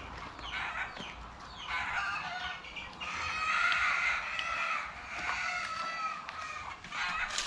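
Chickens clucking in a series of short calls, with one longer, louder call about three seconds in.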